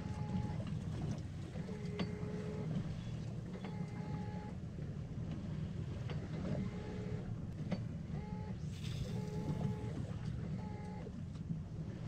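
Ultralight spinning reel whirring in short cranking bursts every one to two seconds as the jig is worked back, with a few sharp clicks between, over a steady low rush of wind and water around the boat.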